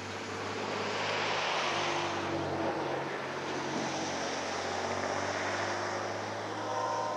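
Distant BNSF diesel locomotives and double-stack freight train running steadily downgrade: a drone with low, steady engine tones that swells about a second in. A brief chord of higher tones sounds near the end.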